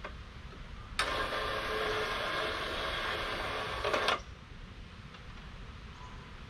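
A small motor runs for about three seconds with a steady mechanical noise, starting and stopping abruptly, with a click as it stops.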